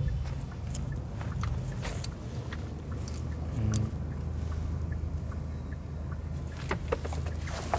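Low, steady rumble of a BAIC BJ40 L SUV driving at low speed, heard from inside the cabin, with a few light clicks and ticks, sharper near the end.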